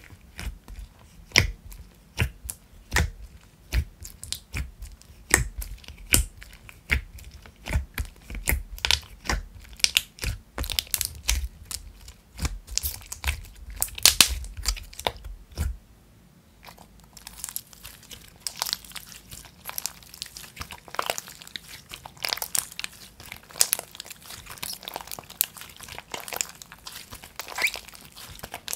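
White glue-based slime with clay mix-ins squeezed and poked by fingers in a plastic tub, giving a dense run of sharp wet clicks and pops with soft thumps. About halfway through the thumps drop away and it turns to a thinner crackling and crinkling as the slime is worked and stretched.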